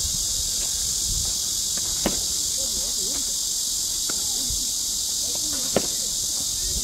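Two sharp cracks of a bat hitting a ball, about two seconds in and again near six seconds, the second the louder, over a steady high-pitched insect chorus. Faint voices are heard in between.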